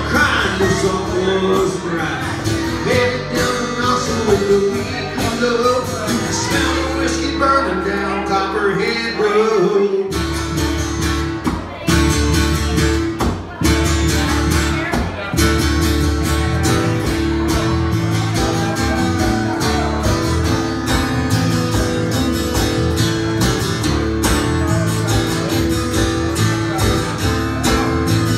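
Live band playing a country-style song: guitar and a singing voice over a steady beat. The low bass drops out briefly about ten seconds in, then comes back.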